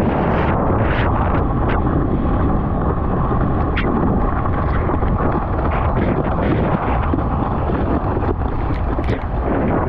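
Loud, steady rush of wind buffeting the microphone together with ocean water noise, with a few brief sharp clicks.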